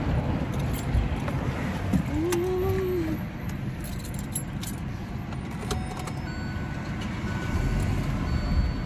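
Keys jangling with scattered clicks and knocks as someone gets into a car and settles into the seat, over a steady low rumble of traffic. A short rising-and-falling hum comes about two seconds in.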